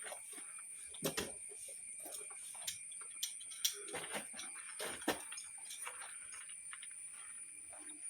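Scattered sharp clicks and knocks at irregular intervals, over a steady high-pitched whine.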